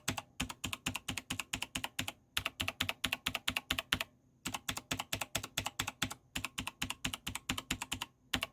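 Keys of a Razer BlackWidow Elite mechanical keyboard tapped rapidly over and over, in runs of sharp clacks with short pauses between. Each key has a green rubber O-ring dampener fitted under a PBT keycap.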